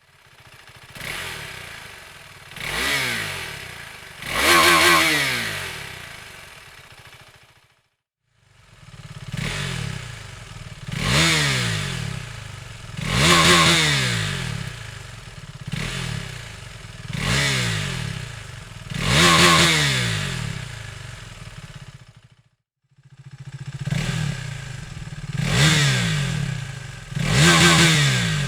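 KTM 390 Adventure's single-cylinder engine, fitted with a Dominator aftermarket exhaust, blipped repeatedly from idle. Each sharp rise in revs falls back toward idle, about a dozen blips in all, in three runs broken twice by short silences.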